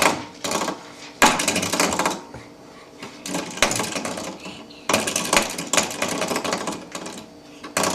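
Coiled-spring doorstop flicked again and again, each flick a sudden buzzing rattle that fades within a second or so; five flicks in all.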